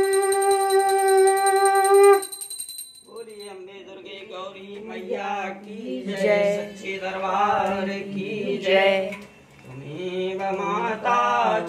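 A conch shell (shankh) blown in one long steady note that cuts off about two seconds in. About a second later devotional chanting begins, singing a prayer over a steady low drone.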